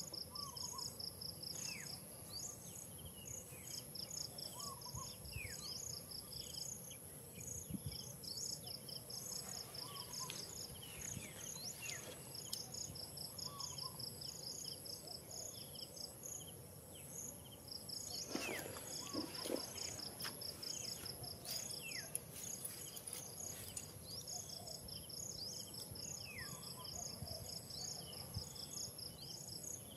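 Forest insect chorus: a steady high buzz under runs of rapid, even chirping that start and stop every few seconds, with short falling whistled bird calls every couple of seconds. A brief rougher burst of noise comes about two-thirds of the way through.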